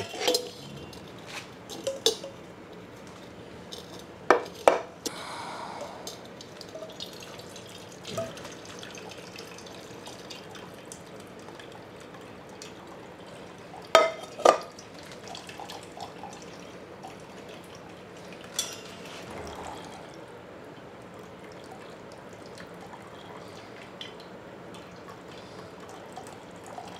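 Onion-and-mutton gravy trickling and dripping through a steel mesh strainer into a steel pot, with a few sharp clinks of steel utensils, two close pairs about four seconds in and again about fourteen seconds in.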